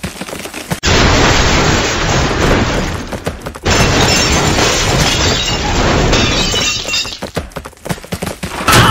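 Crashing, shattering sound effect in two long stretches of about three seconds each, the first starting about a second in and the second right after it. Another loud crash starts just before the end.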